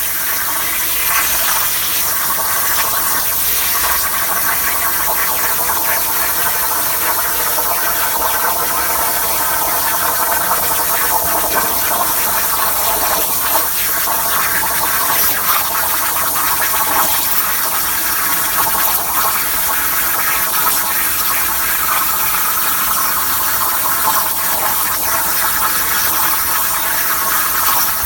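CNC plasma cutter's torch cutting metal: the plasma arc and air jet give a loud, steady hiss.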